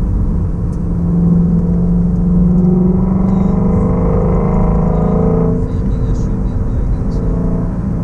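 2016 Ford Shelby Mustang GT350's 5.2-litre Voodoo flat-plane-crank V8 heard from inside the cabin, running at low revs under a light throttle. Its note rises steadily for a couple of seconds, then drops back sharply a little past the middle.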